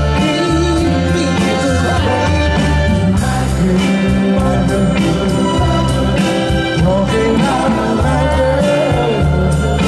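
Live soul band playing a Motown-style song, with bass, guitar and drums and a singer's voice over them.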